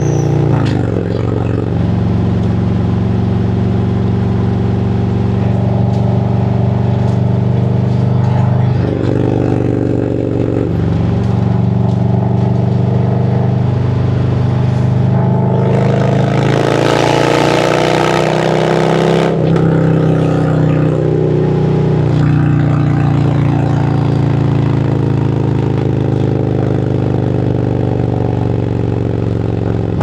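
2017 Harley-Davidson Road Glide Special's Milwaukee-Eight V-twin running under way in traffic. The engine note changes abruptly several times as the throttle and gears change, and a louder rushing stretch lasts about three seconds just past the middle.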